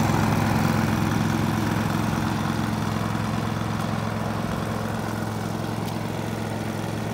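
Westinghouse iGen 4500 inverter generator's single-cylinder engine running steadily in eco mode with no load, an even hum that slowly gets quieter as the microphone moves away from it.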